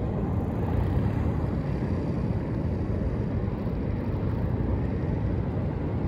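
Steady, rough rumble of wind buffeting the microphone outdoors, strongest at the low end, with no clear engine note standing out.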